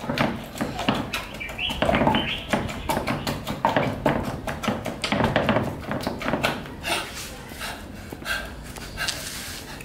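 Wooden pestle pounding in a clay mortar: repeated dull thuds.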